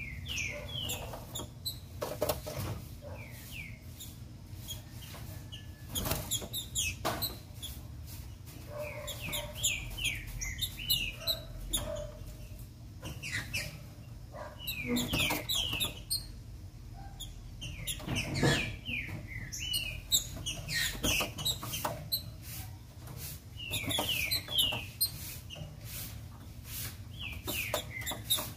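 Female green-winged saltator (trinca-ferro) calling in repeated bursts of short, quick, falling chirps every few seconds, with knocks and wing flutters as the bird hops about the perches and bars of its cage.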